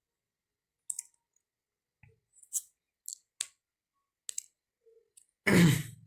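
A few faint, sharp clicks at irregular intervals, then a short burst of voice, like a breath or sigh, about five and a half seconds in.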